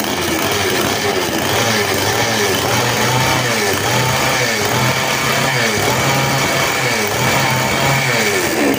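62 cc two-stroke chainsaw engine running with its guide bar and chain off, steady and loud, its tone rising and falling about twice a second.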